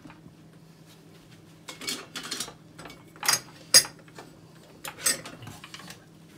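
Metal kitchen utensils clattering and clinking in three short bursts while someone hunts for a potato masher. The loudest is a sharp clink nearly four seconds in.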